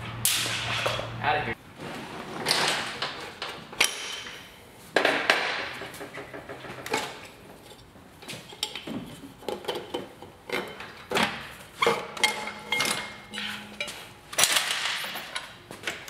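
Hand tools and metal motorcycle parts clinking and knocking as a motorcycle is taken apart, with irregular sharp knocks and brief metallic ringing.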